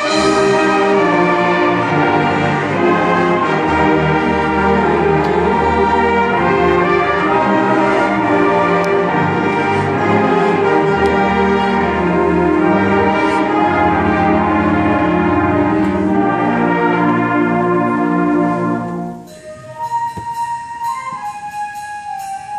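Student concert band playing a loud, full passage of sustained chords, with saxophones, clarinets and brass over a deep bass line. About nineteen seconds in the full band breaks off, leaving a quieter, thinner passage with a single melody line.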